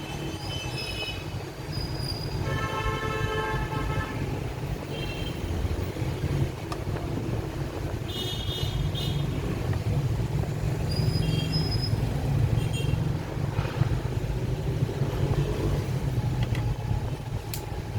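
Steady low rumble of road traffic, with a vehicle horn tooting for about a second and a half a few seconds in, and several short high-pitched beeps scattered through.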